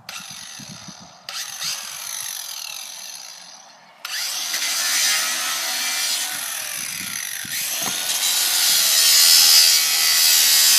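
Handheld grinder running and cutting into a plastic bottle of water. The motor starts, stops for a moment just before four seconds in, then starts again louder, its pitch shifting as the disc bites into the bottle.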